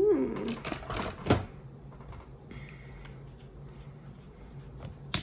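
Makeup items being handled and put down on a table: a quick run of clicks and clatter in the first second and a half, ending in a knock, then a few faint ticks.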